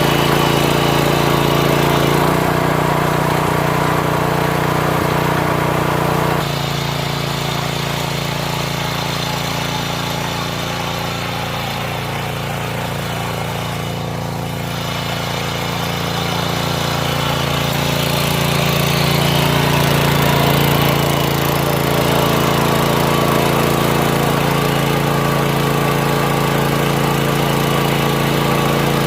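Mini tiller's small engine running steadily as it ploughs soil, its note shifting a few times: it drops and quietens at about six seconds and climbs again around twenty seconds.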